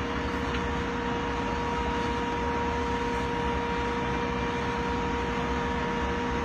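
Mobile crane's engine running steadily under load during a lift: a constant drone with a steady whine over it.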